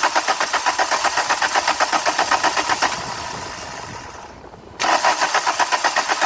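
Starter cranking the 2001 VW Cabrio's 2.0-litre four-cylinder engine, turning over in an even beat of about seven pulses a second without catching: a crank-no-start condition. The cranking fades into a short lull about three seconds in, then the starter cranks again near the end.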